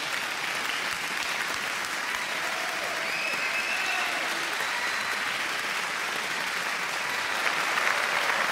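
Recorded crowd applause, a dense, steady clapping that runs evenly throughout, laid over the animated end card.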